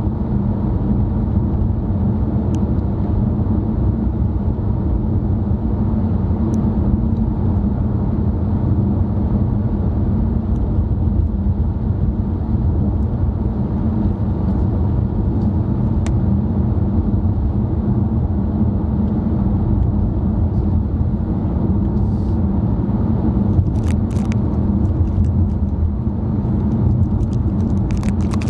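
Steady low road and engine rumble inside a moving car's cabin. A few faint ticks come near the end.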